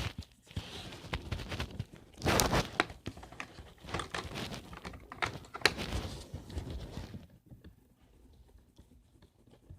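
Colored pencils and paper being handled: irregular rustling with small clicks and taps, louder in spells, dying down after about seven seconds.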